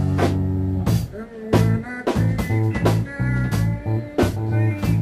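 A funk-rock jam: an electric bass plays a repeating low line under a drum kit keeping a groove with regular sharp hits.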